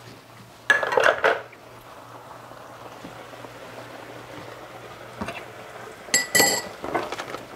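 Dishes and utensils being handled in a kitchen, clattering about a second in and clinking with a short ring about six seconds in, over a steady low hum.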